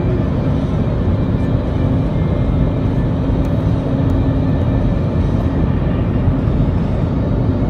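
Steady cabin noise of a jet airliner in flight close to the ground: the turbofan engines' even drone and the rush of air over the fuselage, with a steady low hum.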